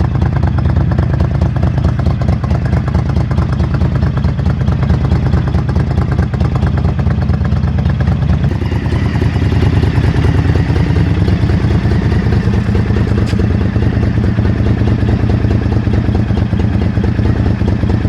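Motorcycle engine running steadily, its note changing a little about halfway through.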